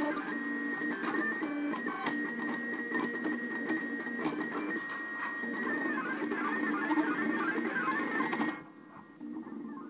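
DIY 3D printer's stepper motors whining as the print head lays down plastic. Several pitched tones step and warble as the axes change speed and direction. About eight and a half seconds in, the sound abruptly drops and turns dull, then the low motor tones carry on.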